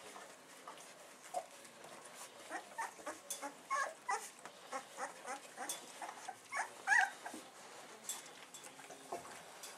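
Fifteen-day-old bullmastiff puppies whimpering and squeaking in a string of short, high calls, the loudest about seven seconds in.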